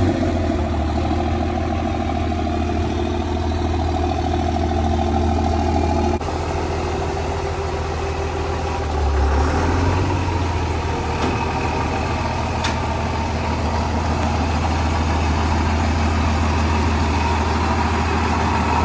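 Engine of a lifted Dodge Ram dually pickup running steadily at idle as the truck creeps down a trailer's ramp, swelling slightly about nine seconds in.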